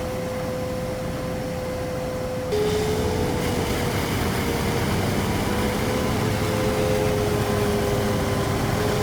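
Concrete mixer truck running steadily with a droning hum. About two and a half seconds in, the hum drops slightly in pitch and gets a little louder.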